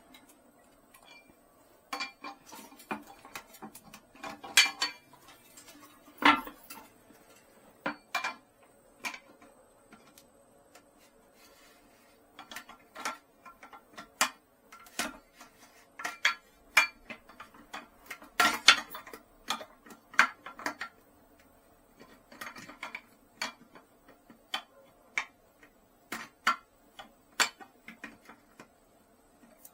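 Irregular clicks and knocks of hard plastic flush-valve parts being handled and fitted in a ceramic toilet tank, some in quick clusters, with a short pause near the middle.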